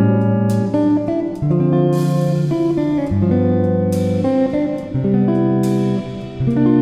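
Background guitar music: plucked guitar chords that change about once a second.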